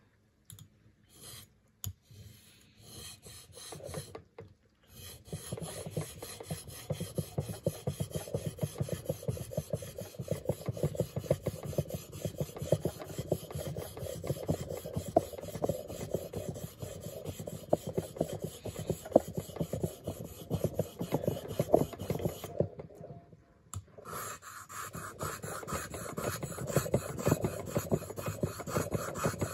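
Leatherman PST's knife blade being sharpened on an abrasive stone: rapid back-and-forth scraping strokes of steel on the abrasive. A few short strokes start it off, then a long steady run. After a pause of about a second and a half near the end, the strokes resume with a brighter, hissier sound.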